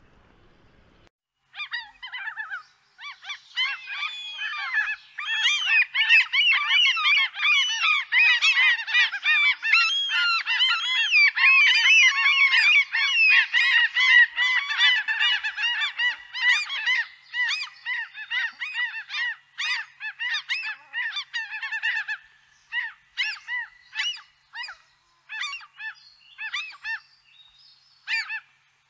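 A large flock of birds calling all at once: a dense clamour of harsh, overlapping calls that starts about a second and a half in and thins to scattered single calls over the last several seconds.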